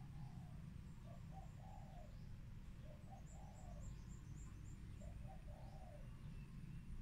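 A dove cooing faintly in repeated phrases about every two seconds, each two short notes followed by a longer one. A small bird gives a quick run of high chirps about three seconds in.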